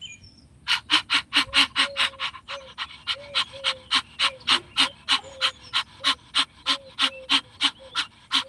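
A woman panting fast and hard through an open mouth, about four short, forceful breaths a second, starting about a second in and stopping near the end. This is the 'little dog' breathing exercise, each breath driven by a contraction of the abdomen.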